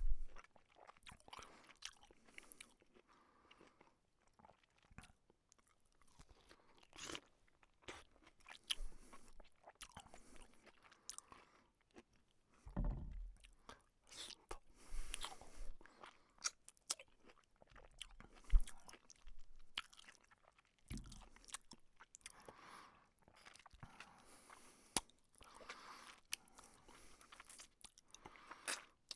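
Someone biting into and chewing a juicy piece of fruit: irregular crunchy bites and wet chewing, with louder bites now and then.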